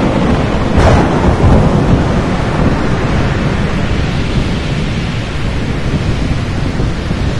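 Thunderstorm: steady heavy rain and rumbling, with a sharp crack of thunder about a second in.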